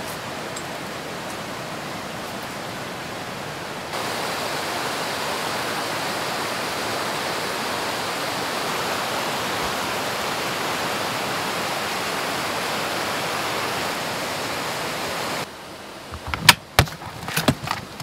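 River water rushing steadily over rocks and small rapids, preceded by a few seconds of quieter steady hiss. Near the end it cuts off suddenly and gives way to several sharp knocks and clicks of things being handled.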